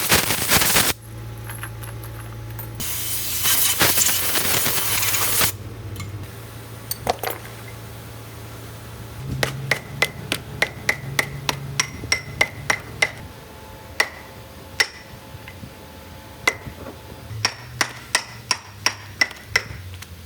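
Hammer striking metal: a string of sharp, ringing knocks from about nine seconds in, roughly one or two a second, over a low steady hum. Before the hammering there are two bursts of loud hissing noise, in the first second and from about three to five and a half seconds in.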